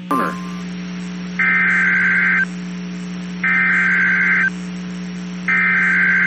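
Emergency Alert System SAME header: three raspy digital data bursts, each about a second long and a second apart, announcing the start of a new alert. Under them runs a steady low hum, and a brief click comes just after the start.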